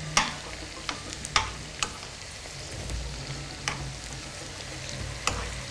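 Almond briouats deep-frying in a pan of oil, the oil sizzling steadily. A metal spoon clicks against the pan about six times as the pastries are stirred and turned.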